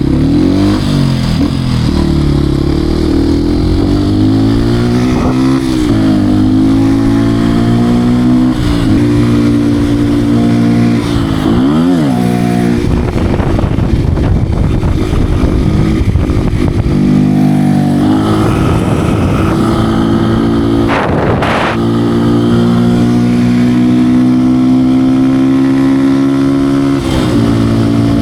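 Beta RR 125 R supermoto's 125 cc single-cylinder engine under riding, revving up and dropping back again and again as it is worked through the gears and the throttle is opened and closed, with wind rushing over the microphone at times.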